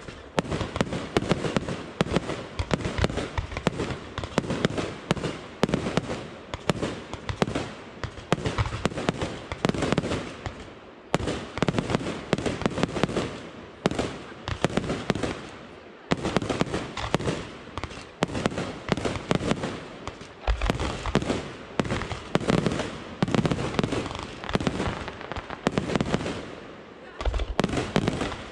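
Fireworks display: aerial shells and cakes launching and bursting in rapid succession, a dense run of sharp bangs several a second with crackling between them.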